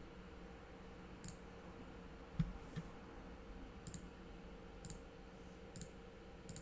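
Faint, scattered clicks of a computer mouse, about seven over a few seconds, the loudest a duller knock about two and a half seconds in, over a low steady electrical hum.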